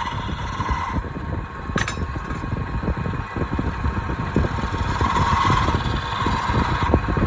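Wood lathe running steadily with a rapid rattle and a thin whine that swells about five seconds in.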